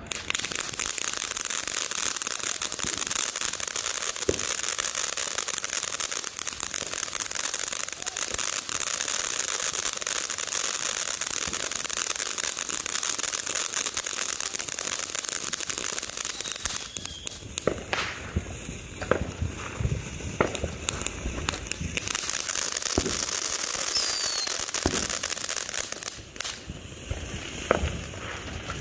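Showtime Fireworks 'Malibu Madness' ground fountain burning with a steady hissing spray and dense crackling. About two-thirds of the way through, the spray thins to separate crackling pops, with a couple of brief falling whistles, before it thickens again and then breaks up into crackles near the end.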